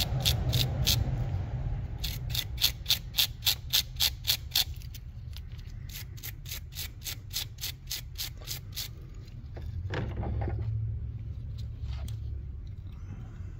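Small wire brush scrubbed rapidly back and forth over a battery terminal clamp to clean off corrosion, about four to five scratchy strokes a second, strongest in the first half and fading out later. A short rustle of handling near the end.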